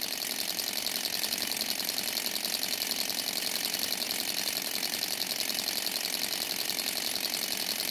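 Alcohol-fired model Stirling engine running steadily, with a rapid, even mechanical clatter.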